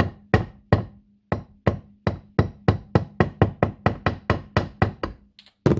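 Steel claw hammer tapping lightly and repeatedly on a press-fitted needle roller bearing in an aluminium KTM shock linkage held in a vise, about three even taps a second, with two quick taps near the end. The taps are meant to seat the bearing the last little bit; their sound tells that it is home, flush in its housing.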